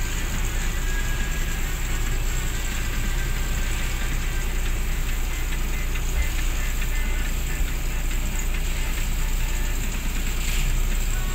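Diesel engine of a UD Croner garbage truck running steadily, a continuous low rumble.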